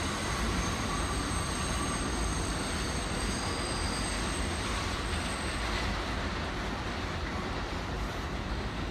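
New York City subway train running on an elevated steel structure as it pulls away around a curve: a steady rumble with a thin high wheel squeal that dies out about halfway through.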